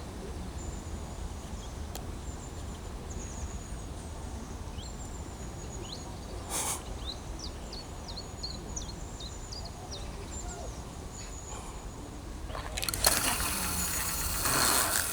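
Many short, high bird chirps repeating over a steady low rumble. About 6.5 seconds in there is a brief rush of noise, and a louder rushing noise begins near 13 seconds and lasts to the end.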